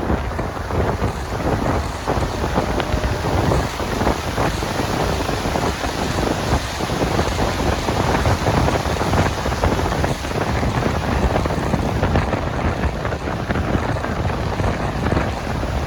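Strong wind blowing across a phone's microphone: a loud, steady, buffeting rumble and hiss.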